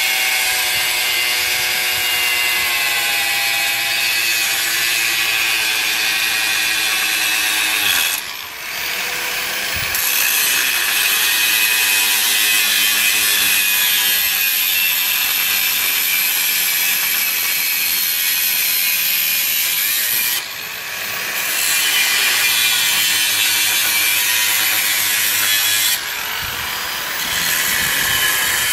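Corded angle grinder cutting into the steel casing of a fridge compressor: a steady, loud grinding with a high whine. Three times the disc comes briefly off the cut; the sound drops, then a rising whine comes as the motor spins back up.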